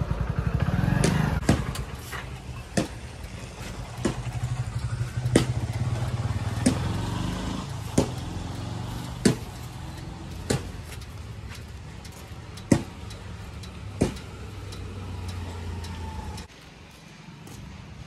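A vehicle engine idling with a steady low hum that cuts off about sixteen seconds in. Sharp clicks sound over it at fairly even intervals, roughly one every second and a quarter.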